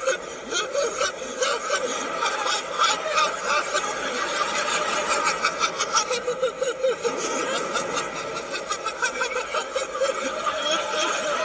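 A man's snickering laughter played backwards, in a continual run of short giggling pulses.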